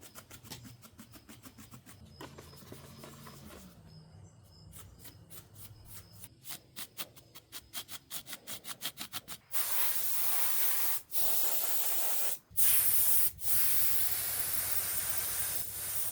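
Aerosol spray can spraying in several long hissing bursts with short breaks, after a run of fast, faint ticks. It is most likely adding light highlights over a dark oil-stained wood carving.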